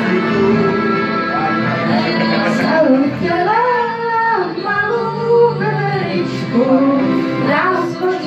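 Karaoke: women singing into a handheld microphone over a recorded backing track.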